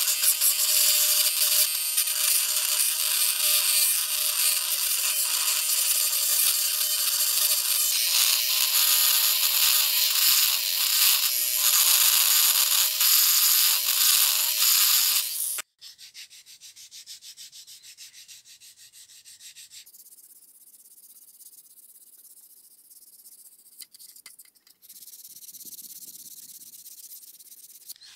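Handheld rotary tool with a small bit grinding rust off the steel pivot clip of an antique balance scale: a steady motor whine under a loud scratchy hiss of the bit on metal. It cuts off suddenly about halfway through, leaving only faint, much quieter sounds.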